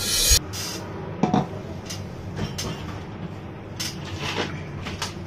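Drum-heavy music cuts off abruptly about half a second in, followed by a few scattered light knocks and clicks of small objects being handled on a kitchen counter.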